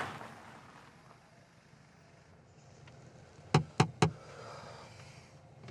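Three quick sharp knocks in a row on a car's side window, a policeman rapping to get the occupants' attention, over a faint steady background.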